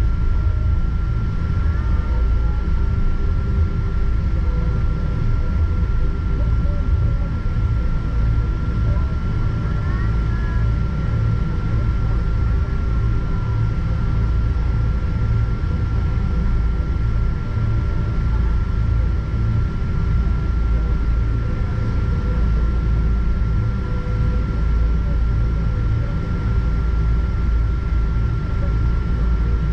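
Cabin noise of a Boeing 777-200ER with Rolls-Royce Trent 892 engines while taxiing: a steady low rumble heard through the fuselage, with a thin steady whine running on top.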